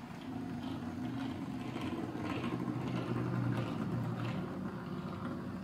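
Model railway locomotive's electric motor running very slowly on low half-wave power from an H&M Clipper controller, a steady buzzing hum, with faint clicks now and then. The motor is noticeably noisy at this crawl.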